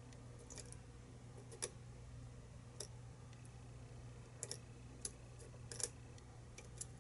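Lock pick and tension wrench working the pins of a pin-tumbler challenge lock, making small, sharp, irregular metallic clicks as the pins are probed and set, over a faint steady hum.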